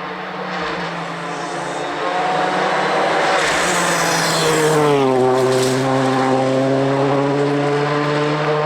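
Ford Fiesta R5 rally car's turbocharged four-cylinder engine held at steady high revs as the car approaches and passes. Its note swells and then drops in pitch about five seconds in as it goes by, and it holds a lower note as it pulls away.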